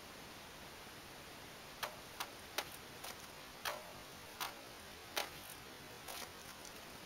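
Katana cutting through a standing green bamboo pole, heard as a run of about eight short, sharp cracks and knocks over four seconds as the blade goes through and cut pieces fall.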